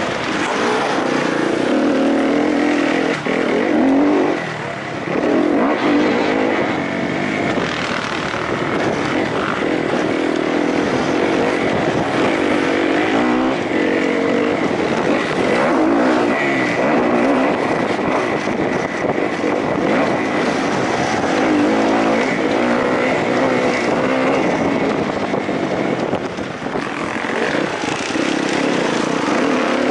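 Kawasaki KXF four-stroke single-cylinder motocross bike engine heard on board, revving up and down as it is ridden hard over a dirt track, its note rising and falling every second or two, with a thin high whine alongside.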